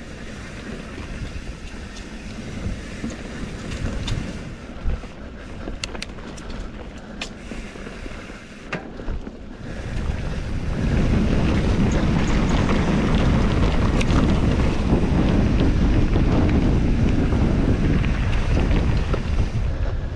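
Wind buffeting the camera microphone over the rolling noise of mountain-bike tyres on a dirt trail covered in dry leaves, with scattered clicks and rattles from the bike. About halfway through the wind noise gets much louder and stays that way.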